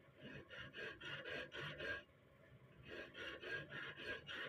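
Hand file rasping back and forth on a small steel gun part held in a bench vise, about four quick strokes a second. The strokes come in two runs with a pause of about a second near the middle.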